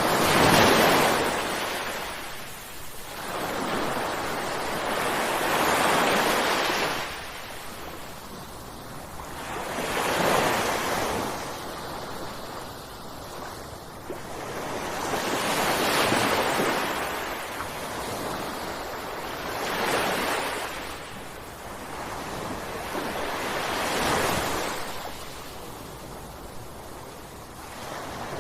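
Ocean waves breaking on a shore, each crash swelling and then fading as the water washes back, about every four to six seconds.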